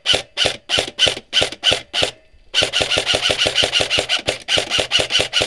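Airsoft rifle firing a rapid string of shots close to the microphone, about five a second at first. After a short pause it fires a faster run of about eight a second, then more shots after a brief break near the end, emptying the magazine.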